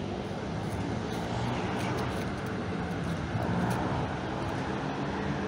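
Steady rumble and low hum of a passing train, even in loudness throughout.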